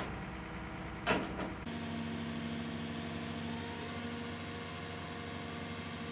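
Two sharp knocks in the first second or so, then, after an abrupt change, a motor vehicle engine running with a steady hum.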